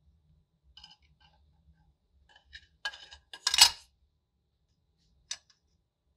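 Light metallic clinks and rattles as the lantern's painted metal body and reflector base are handled. A few faint ticks come first, then a cluster of clinks, loudest about three and a half seconds in, and one sharp click near the end.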